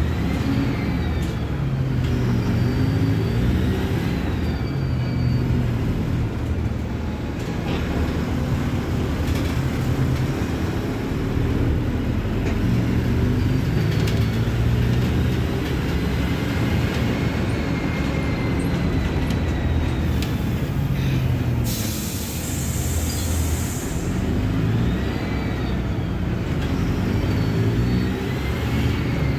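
Mercedes-Benz OF-1721 Bluetec 5 bus diesel engine running under way, its pitch climbing and dropping again and again as the bus accelerates through the gears and eases off, with a whine rising and falling above it. About three-quarters of the way in comes a hiss of roughly two seconds, typical of the air brakes venting.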